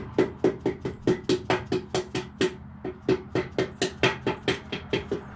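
Rapid, even tapping on a piston, about four to five knocks a second, driving it and its rings down into a small-block Chevy V8's cylinder bore.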